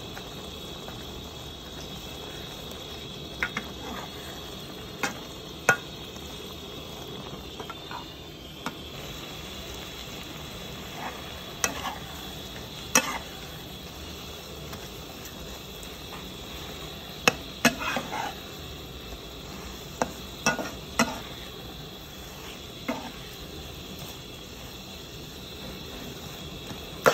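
Metal spatula stir-frying snail meat and long green vegetables in a wok over a steady sizzle. The spatula clinks and scrapes sharply against the pan at irregular moments, with a cluster of clinks around the middle and one near the end.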